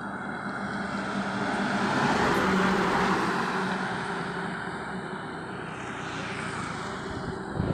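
A loaded heavy goods truck drives past on the highway. Its engine hum and tyre rush swell to a peak about two and a half seconds in, then fade as it moves away.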